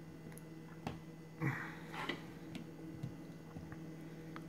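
Hands handling a plastic action figure and its accessories: a few light clicks and taps, with a short scrape about a second and a half in.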